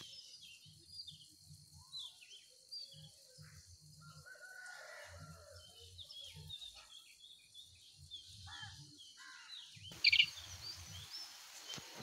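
Many small birds chirping in the early-morning dawn chorus, with a faint rooster crowing about four to five seconds in and a louder, sharp bird call just after ten seconds.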